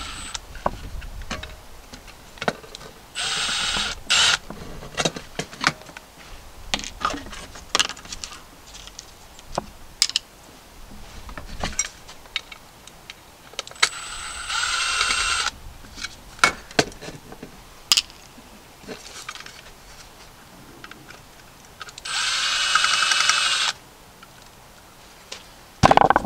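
A power drill backing out screws, whining in three short runs of about a second to a second and a half each. Light clicks and knocks of metal parts being handled come between the runs.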